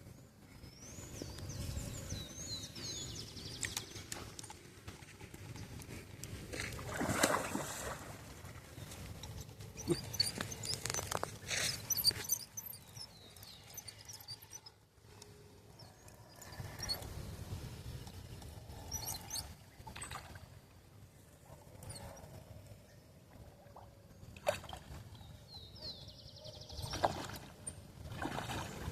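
Water sloshing and splashing against a small fishing boat, with scattered knocks and clicks, and a wavering high chirping twice, near the start and near the end.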